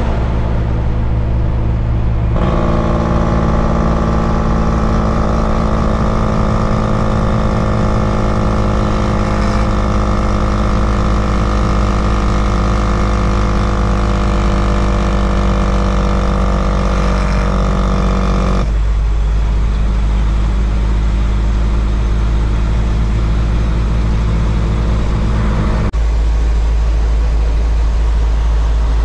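Brockway 260 truck's diesel engine running steadily at highway cruise, heard from inside the cab with road noise. The engine note fills out about two seconds in and thins again about two-thirds of the way through.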